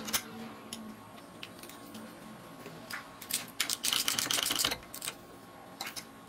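Metal clicks and rattles of a hand tool turning the centre bolt of a skateboard-wheel roller on a homemade belt sander, scattered at first, then a busy run of quick clicks about three to five seconds in.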